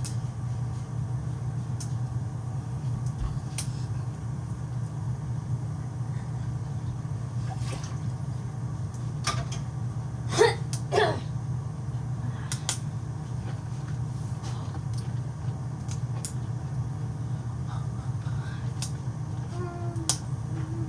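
Kitchen background noise: a steady low hum with scattered light clicks and knocks, and two short, louder pitched sounds about ten and a half seconds in.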